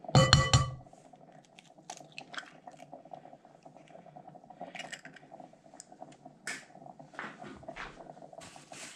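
Eggs being cracked into a bowl of flour batter: a sharp ringing knock on the bowl at the start, then scattered light clicks and taps of shell and utensils over a steady low hum.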